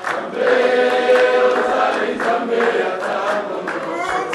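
Congregation singing a worship song together, many voices in unison, with some hand-clapping.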